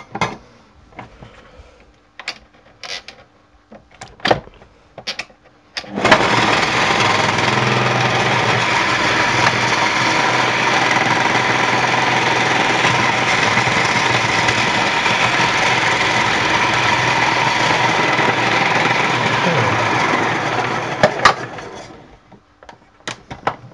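Bosch MCM62020GB food processor's motor running steadily for about fourteen seconds as leeks are pushed through its slicing disc, then spinning down. A few clicks and knocks come first, and the motor starts suddenly about six seconds in.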